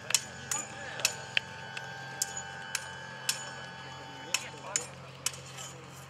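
Two sabres clashing in a staged duel: sharp metallic clinks of blade on blade, about a dozen at irregular intervals.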